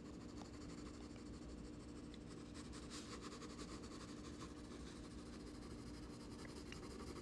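4B graphite pencil scratching faintly on paper in quick, repeated shading strokes, which grow denser a few seconds in; a steady low hum lies underneath.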